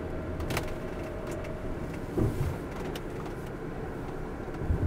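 A motorhome running at low speed, heard from inside the cab: a steady low engine hum with a few light clicks and rattles, and a low thump about two seconds in and again near the end.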